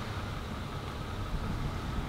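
Toyota Sienna minivan on the move, a steady low rumble of engine and road noise.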